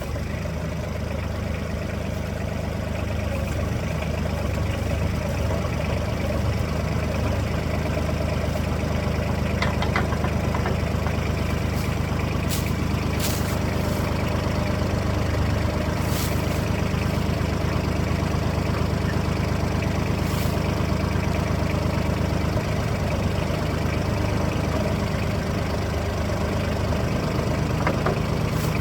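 Kubota tractor's diesel engine running steadily while the backhoe's hydraulics are worked to seat the attachment, with a few short sharp sounds over it about a third and two thirds of the way through.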